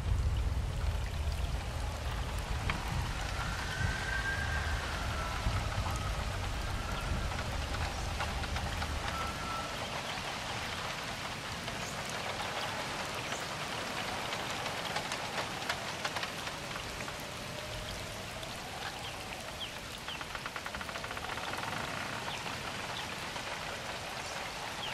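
Steady rain falling, with many individual drops ticking close by. A low rumble underlies the first ten seconds or so, then drops away.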